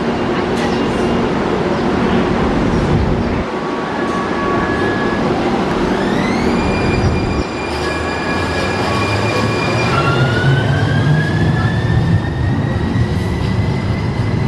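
Siemens S70 light rail train running at the platform: wheel and motor rumble with the high electric whine of its traction drive, which climbs in pitch in steps about halfway through and rises again in a long glide near the end.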